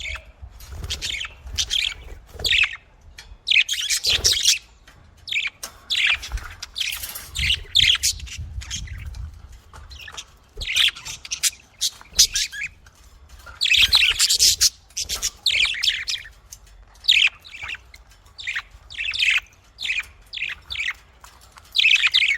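Pet budgerigars chirping and chattering in quick, irregular bursts of short scratchy calls, with an occasional squawk.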